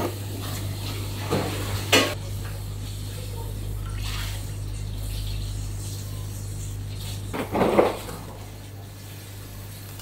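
Kitchen work: dishes and pots clank a couple of times, sharply about two seconds in, with water being handled. A louder noisy burst comes near the end. A steady low hum runs underneath.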